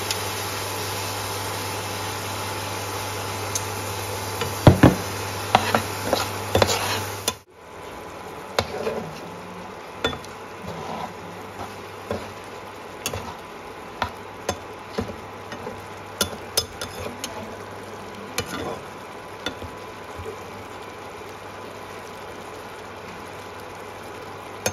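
A spatula stirring tomato paste into frying onion masala in a pan, with sharp clicks and knocks against the pan over a steady sizzle. The level drops suddenly about seven seconds in, after which the sizzle is quieter and the clicks come only now and then.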